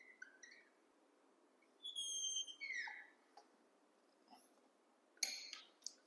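Marker squeaking faintly in short drawing strokes: a longer, whistle-like squeak about two seconds in and a scratchier stroke near the end.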